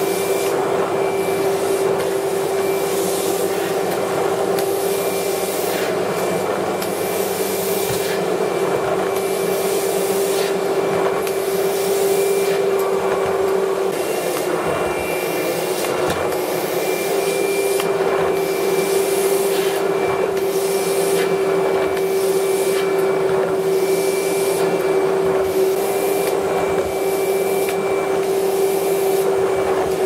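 Household vacuum cleaner running, a steady motor hum with a constant whine. A hiss swells and fades over and over as the floor nozzle is worked across a carpet.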